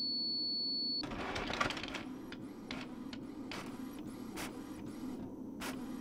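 A multifunction printer gives a high, steady beep lasting about a second, then starts up and runs as it begins to print. Its mechanism works in a regular cycle about three times a second, with several louder clacks.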